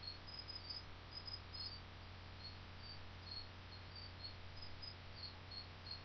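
A cricket chirping faintly in short, high chirps a few times a second, over a steady low electrical hum and hiss.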